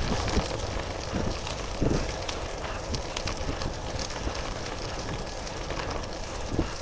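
Wind buffeting the microphone over steady tyre noise from an Eskute Voyager e-bike riding along, with scattered crackles and knocks.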